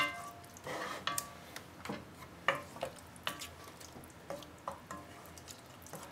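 Wooden spoon stirring thick, chunky tomato sauce in a stainless steel saucepan. The spoon knocks against the pan about once or twice a second, and each knock sets the pan ringing briefly. The hardest knock comes right at the start.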